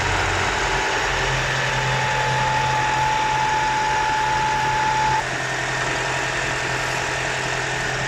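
2010 Ford Fusion Hybrid's 2.5-litre four-cylinder petrol engine idling steadily, heard up close in the open engine bay while still on its old oil, before the oil change and additive. A thin steady whine sits over the engine noise and stops about five seconds in, where the sound drops slightly.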